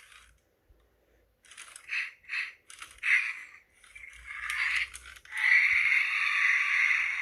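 A WowWee Roboraptor robot dinosaur toy playing its electronic calls through its small built-in speaker: a few short chirps, then a longer call lasting nearly two seconds near the end.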